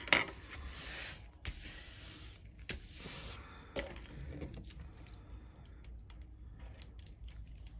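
Scissors snipping off the paper edge of a diamond painting canvas: several sharp cutting clicks among crinkling paper rustle.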